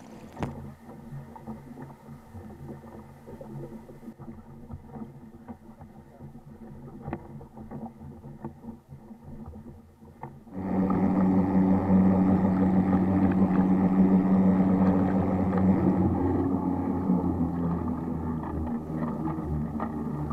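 Small gasoline outboard motor on an inflatable kayak running steadily, faint at first, then much louder from about ten seconds in as it drives the kayak forward.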